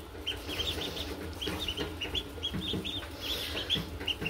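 A brood of day-old blue Indian Runner ducklings peeping: many short, high peeps overlapping, several a second.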